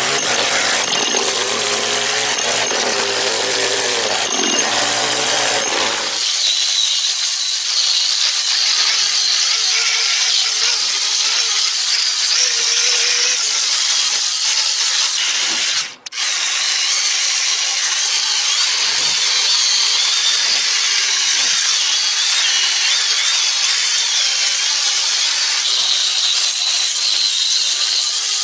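A two-stroke chainsaw running while it carves into oak, replaced after about six seconds by the steady high whine and hiss of an angle grinder with a sanding disc sanding the oak carving. The grinder sound breaks off for a moment at about sixteen seconds, then goes on.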